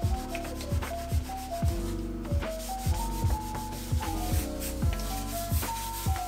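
A cloth rubbing back and forth across a wooden tabletop as it is wiped down, over background music with a steady beat.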